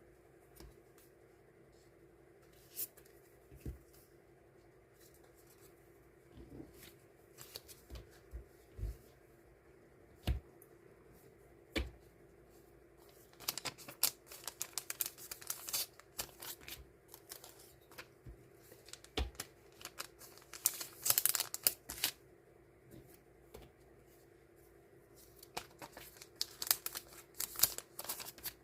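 Sticker sheets and their paper and plastic packaging being handled by hand on a desk. Scattered light taps and clicks alternate with bursts of rustling, which are busiest about halfway through and again near the end, over a faint steady hum.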